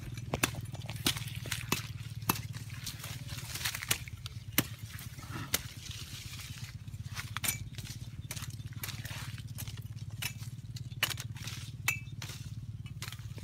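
Cleaver chopping at brush and soil: irregular sharp knocks and clicks, some in quick runs, over a steady low hum.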